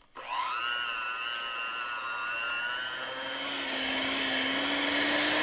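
Electric hand mixer switched on about a quarter second in and running steadily with a whine, its whisk beaters beating melted chocolate into whipped cream in a glass bowl. Its pitch creeps slightly higher over the last couple of seconds.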